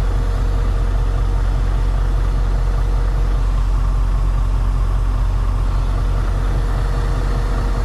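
Semi truck's diesel engine idling steadily: a constant low rumble with a faint steady hum above it.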